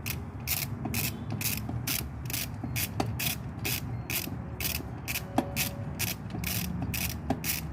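Ratchet wrench clicking in quick repeated strokes, about two to three a second, loosening intake manifold bolts, over a low steady hum.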